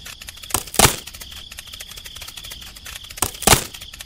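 Two knocks about two and a half seconds apart, each a sharp click followed by a heavier hit, as a tool strikes the model bridge's support posts and knocks one down. They sit over a steady fast ticking with a thin high tone.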